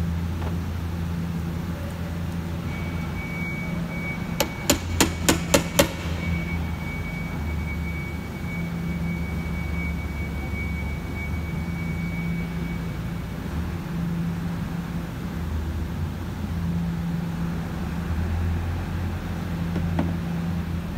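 About six quick, ringing metal taps in a second and a half: a hammer striking a tool to drive round the lock ring that holds a fuel pump assembly in a plastic fuel tank. A steady low hum runs underneath, and a faint thin high tone runs through the middle.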